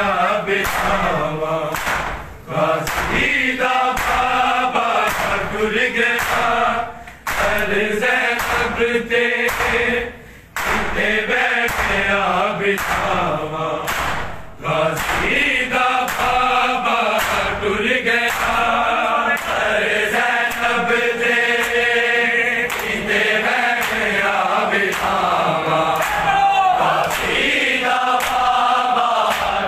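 Group of men chanting a noha, a Shia mourning lament, in unison, with a steady rhythm of sharp hand strikes on bare chests (matam) beating time under the singing. The chanting breaks off briefly a few times.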